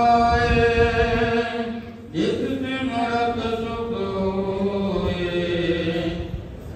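A man chanting Sikh Gurbani hymns into a microphone in long held notes. The chant breaks off briefly about two seconds in and resumes with a rising glide into the next line.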